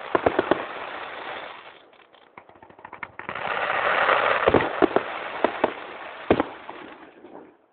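Fireworks going off close by: dense crackling with sharp bangs, thinning out about two seconds in, then building again with several loud bangs before dying away near the end.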